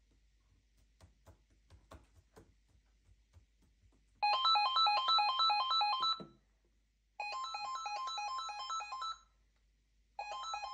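Cordless telephone ringing with an electronic ringtone, a rapid pattern of beeping tones in three rings, the first about four seconds in; a few faint clicks come before the first ring.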